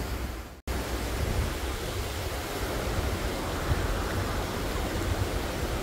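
Steady rushing noise of water from a rain-swollen stream, with a low rumble beneath. It cuts out abruptly for a split second about half a second in, then carries on unchanged.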